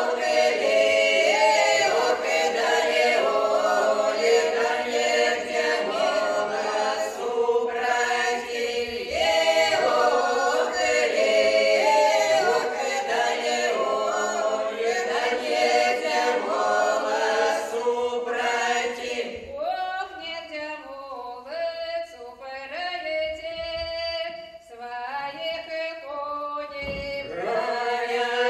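Small mixed folk ensemble of women's voices and one man's voice singing a folk song a cappella in several parts. About two-thirds of the way in, the sound thins to fewer voices, and the full group comes back in near the end.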